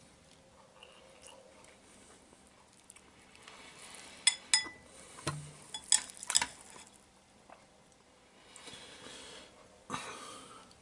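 Metal fork clinking against the bowl and stainless steel tray while food is scooped: a handful of sharp, ringing clinks between about four and six and a half seconds in, with a softer knock near the end.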